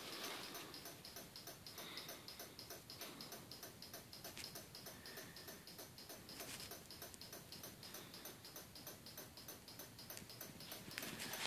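Faint, steady rapid ticking, several evenly spaced ticks a second.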